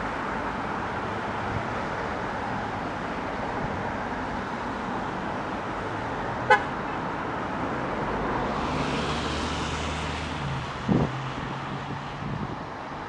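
Steady city road-traffic noise, with a vehicle passing by about two-thirds of the way through. A very brief horn toot comes about halfway through, and a short low bump near the end.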